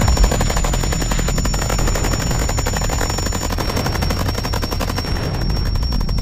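Harsh noise wall: a loud, dense wall of distorted electronic noise with a rapid stutter of clicks, deep bass rumble and a thin steady high whistle.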